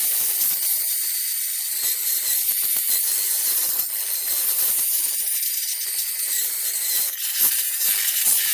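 A handheld power tool with a cleaning brush or pad running steadily against the wheel hub, making a hissing scrape with scattered ticks as it scours rust and dirt off the hub face. It cuts off just after the end.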